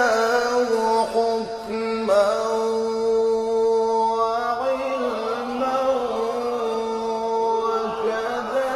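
A solo voice chanting a slow melody in long held notes with ornamented turns, one note held for about two and a half seconds from about two seconds in.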